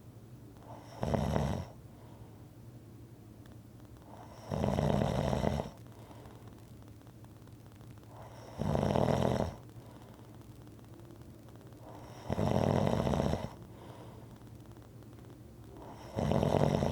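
Rhythmic snoring: five snores, each about a second long, coming evenly about every four seconds.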